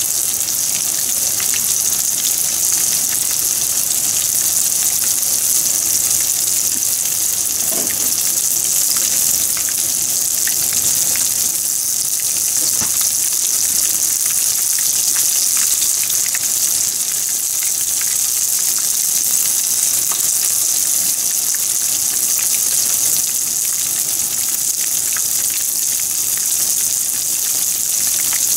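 Breaded pieces deep-frying in hot oil in a pan: a steady sizzle with fine crackling.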